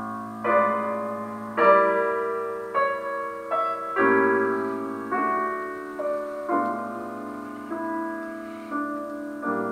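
Piano played slowly: a new chord struck about once a second, each left to ring and fade.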